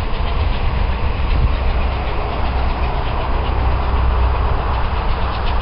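Steam locomotive 34067 Tangmere, a Bulleid Pacific, approaching from a distance with its train: a steady, loud rumble with no distinct exhaust beat.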